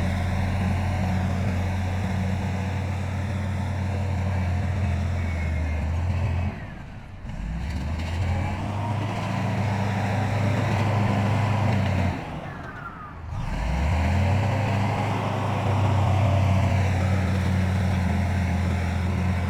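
Heavy diesel engine of earth-moving machinery running steadily. It drops away twice, briefly, and climbs back up in pitch each time.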